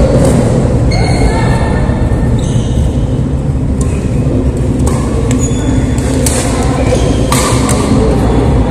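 Badminton rally: sharp racket-on-shuttlecock hits and brief shoe squeaks on the court mat over a loud, steady low rumble of hall noise.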